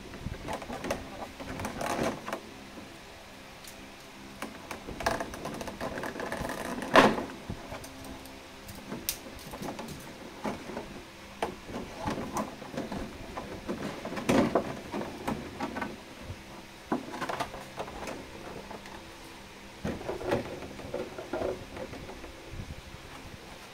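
Clear plastic blister tray and plastic wrapping being handled: irregular crinkling, creaking and tapping, loudest about seven seconds in, over a faint steady hum.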